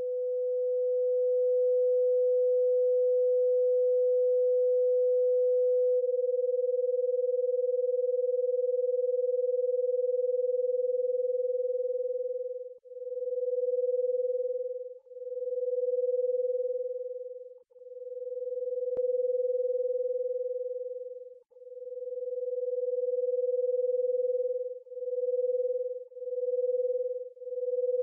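A pure 500-hertz sine tone from the BeeOne software oscillator. It holds steady for about six seconds, then swells and fades in slow pulses as amplitude modulation is switched on; the pulses come faster near the end as the modulation settings are changed.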